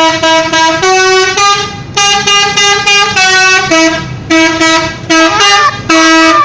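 Telolet horn, the multi-tone musical air horn of an Indonesian bus, playing a long run of short notes that step between a few pitches with brief gaps. About five seconds in, a sliding tone rises over the notes.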